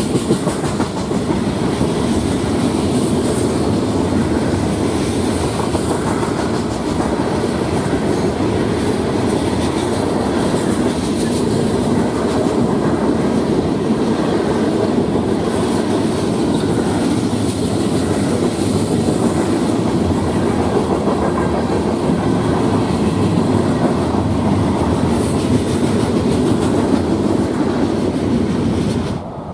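Freight cars of a CSX manifest train rolling by, a steady loud rumble of steel wheels on the rails. The noise drops off suddenly near the end as the last car clears.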